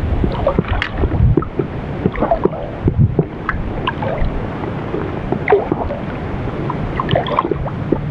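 Lake water lapping and slapping against the side of a small boat in irregular little splashes, with wind rumbling on the microphone.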